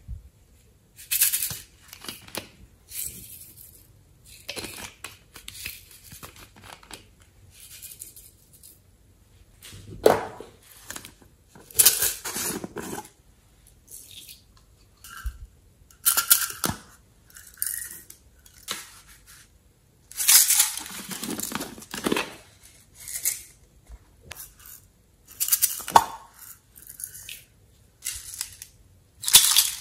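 Small plastic containers and clear plastic bags of glitter and sequins being handled, opened and emptied onto slime: irregular crinkling and tearing sounds that come in short separate bursts.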